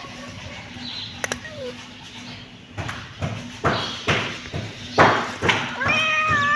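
A kitten gives one long, drawn-out meow near the end, after a few seconds of short, noisy scuffling sounds.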